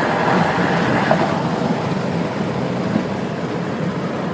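Steady road and tyre noise inside a car moving at highway speed, easing slightly after about two seconds.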